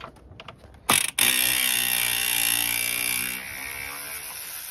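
Cordless electric ratchet spinning out a 10 mm bolt. A few light clicks come first, then the motor starts sharply about a second in. It runs steadily for about two seconds and then carries on more quietly until near the end as the bolt backs out.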